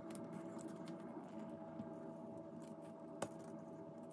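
Utility knife blade scraping along the edge of frosted window film, trimming it against the frame, giving soft scratchy clicks with one sharper click a little past three seconds in. A steady low hum runs underneath.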